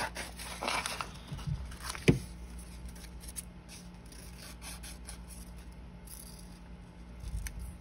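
Small scissors cutting through paper, with paper being handled and rustled; a sharp click about two seconds in.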